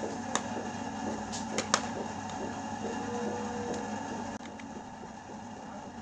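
Handling noise of a hair dryer's rubber cord strain relief being worked into its plastic handle: light rubbing with a few sharp clicks, the loudest about a second and a half in, over a steady background hum.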